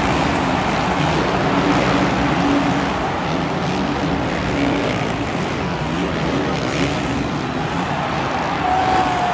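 Several 450cc four-stroke supercross motorcycles racing together, their engines revving up and down as the riders work the throttle through corners and jumps.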